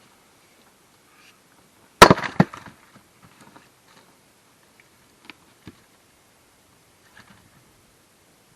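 A splitting maul strikes a firewood block about two seconds in, and the wood cracks apart with a short splintering crackle. A few faint knocks of wood follow, and another sharp knock comes at the very end.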